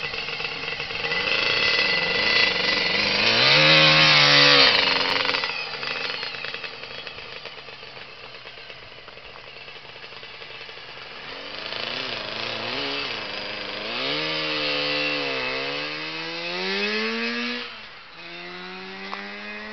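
Lambretta scooter with a Targa Twin two-stroke twin-cylinder engine revving loudly as it pulls away, then quieter as it rides off. It grows louder again, the engine note rising through several gear changes as it accelerates along the road.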